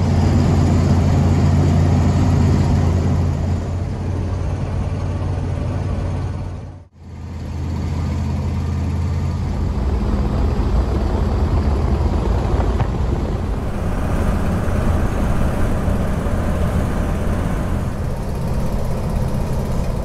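Vehicle driving at speed: a steady engine drone under road and wind noise. It cuts out for a moment about seven seconds in and picks up again with a slightly different sound.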